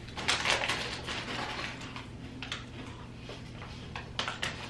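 Crisp crackling and crunching of Yuki no Yado rice crackers and their plastic snack bag being handled, loudest in a burst just after the start, then a few scattered crackles.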